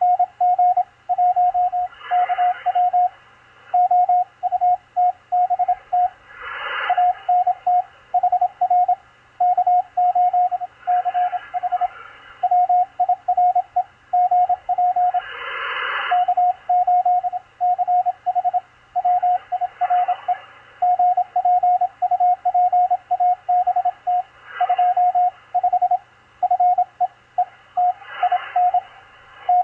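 Morse code (CW) signal on the 20-metre amateur band, heard through a Machilite DSP SDR receiver: a steady mid-pitched tone keyed on and off in quick dots and dashes. It sits over receiver hiss, with a swell of static rising and falling every four to five seconds.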